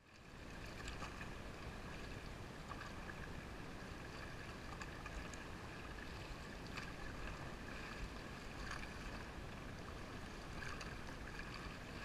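River water rushing and splashing around an inflatable raft as paddles dip in, a steady wash of water noise with scattered small splashes, fading in at the start.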